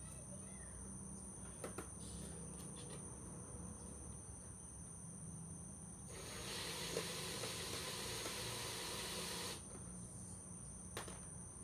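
Cordless drill running for about three and a half seconds as it backs a screw out of a football helmet's facemask clip, then stopping abruptly. A steady high insect drone continues in the background, and there are a few small clicks of handling.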